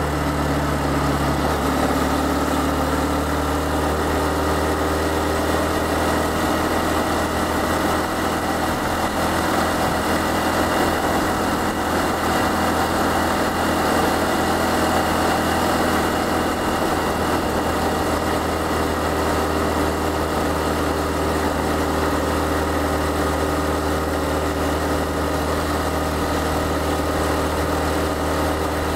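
Honda Cross Cub CC110's small single-cylinder four-stroke engine running steadily under way, as heard by the rider, over a haze of wind and road noise.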